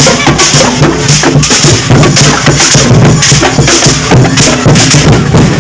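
Loud drum-heavy music with a steady beat and hissy cymbal-like hits repeating about twice a second.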